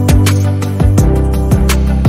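Background music with drum hits over a low, steady bass line.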